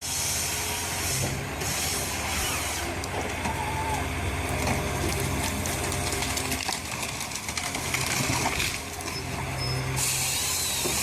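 Heavy forestry machine's diesel engine running steadily, with mechanical noise and short bursts of hiss about a second and a half in and again near the end.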